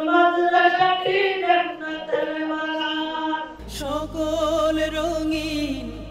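A boy's voice singing an unaccompanied devotional chant into a microphone, holding long melodic notes. About three and a half seconds in it gives way to a different vocal with a wavering vibrato over a steady low hum.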